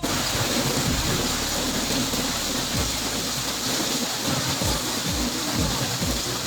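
Steady heavy rain falling on the boat's canopy shelter, with irregular low thuds from about three seconds in.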